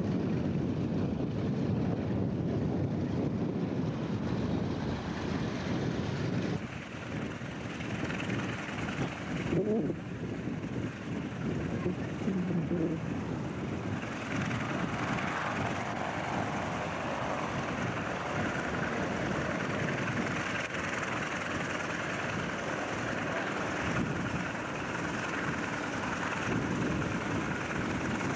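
Piston-engine propeller aircraft running, a continuous engine noise that changes character about a quarter of the way in and turns brighter about halfway through.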